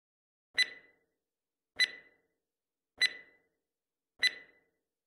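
Countdown timer sound effect: four short, sharp ticks with a brief ring, about 1.2 seconds apart, counting down the seconds given to answer.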